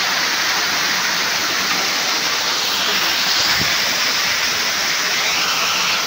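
A small cascade of the Kintampo Waterfalls pouring onto rocks close by: a steady rush of falling water. There is a brief low thump about halfway through.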